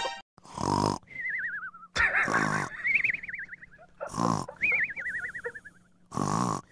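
A dozing dog snoring: a rasping snort about every two seconds, each followed by a high, wavering whistle through the nose that slides down in pitch.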